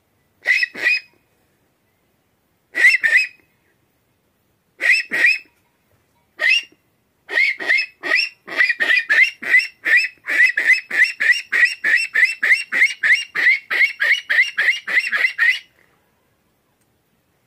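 Hand-made aluminium mocó (rock cavy) call blown by mouth, giving short whistling squeaks in pairs and threes a couple of seconds apart. About seven seconds in it breaks into a fast run of about four notes a second, which stops shortly before the end. The call imitates the rock cavy's own call to bring the animal out of the rocks.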